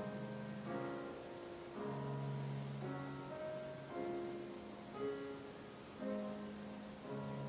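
Slow, gentle piano background music: held chords and notes, with a new one struck about once a second.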